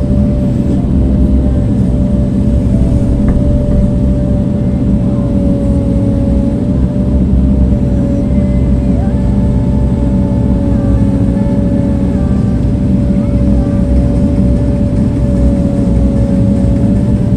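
Heavy earthmoving machine's engine running steadily, with a steady whine held above the engine's drone.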